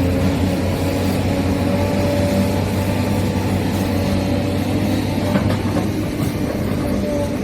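Huina 1593 RC excavator running, a steady low mechanical hum with a few steady higher tones over it, and a short clatter about five seconds in.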